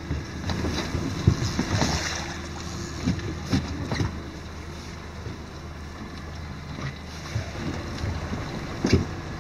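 Water slapping against a small fishing boat's hull, with wind on the microphone and a few scattered thumps, the loudest about a second in and near the end.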